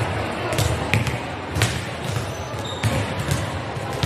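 Volleyballs being hit and bouncing on a gym's hardwood floor during warm-up: sharp, irregular smacks about half a dozen times, over a steady murmur of voices.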